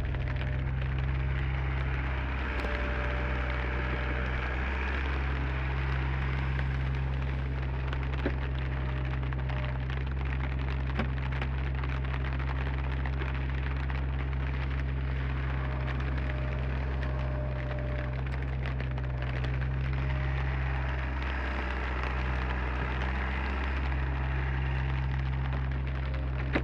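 Komatsu PC30 mini excavator's diesel engine running steadily, with rain falling.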